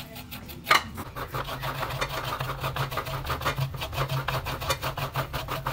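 Fresh coconut flesh being grated by hand over a plate: fast, even rasping strokes, several a second, after a single sharp knock just under a second in. A steady low hum runs underneath.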